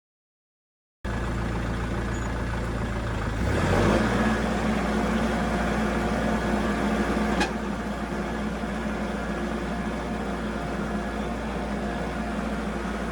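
Tractor engine running steadily, revving up a few seconds in, with a single sharp click a few seconds later.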